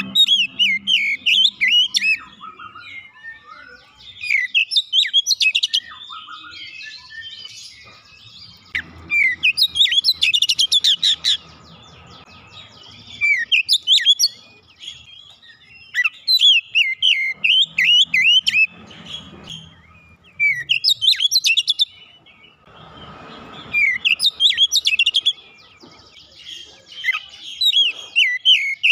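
Oriental magpie-robin (kacer) singing: bursts of rapid, varied whistles and chirps, each a second or two long, repeated every few seconds with short pauses between.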